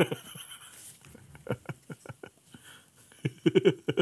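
A man laughing in quick runs of 'ha' pulses: it dies down to a few scattered breaths, then breaks into a fresh fit of laughter near the end.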